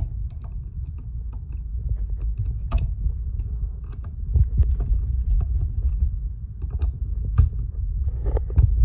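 Irregular light clicks and taps of small ceiling-fan parts being handled and tightened by hand, over the low rubbing and bumping of a hand holding the phone's microphone.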